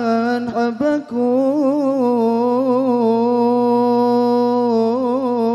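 A voice singing a line of an Arabic devotional song, drawing each syllable out in long melismatic notes with vibrato, with two short breaks between syllables about a second in.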